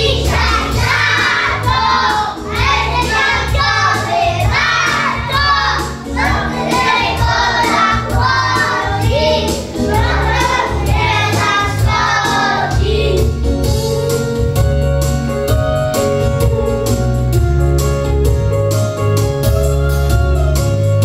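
A group of small children singing together over backing music with a steady beat. About two-thirds of the way through, the singing stops and the instrumental music plays on alone.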